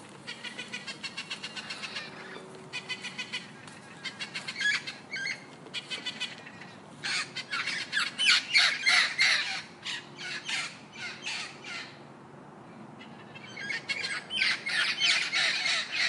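Birds squawking in rapid chattering runs of short, harsh calls, loudest from about seven to ten seconds in and again near the end.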